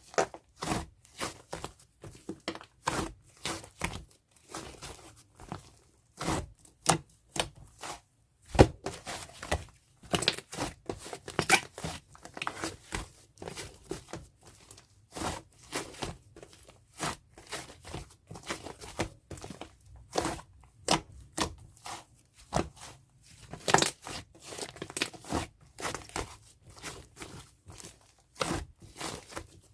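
White fluffy clay slime being squished and stretched by hand, giving an irregular run of soft crackles and tearing sounds.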